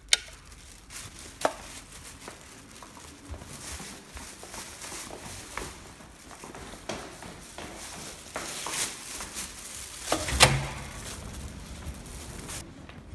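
A wall light switch clicks right at the start, then footsteps with scattered knocks and rustles from a phone camera carried by hand while walking. A loud thump comes about ten and a half seconds in.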